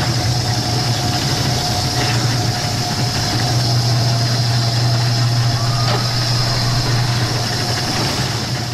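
A machine running steadily: a continuous low hum with a faint constant whine above it.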